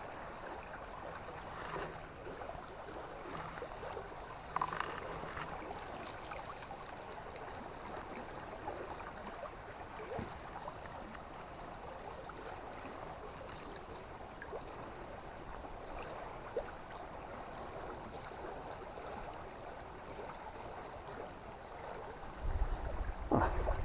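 River water flowing steadily, with a few faint clicks. A low rumble comes in near the end.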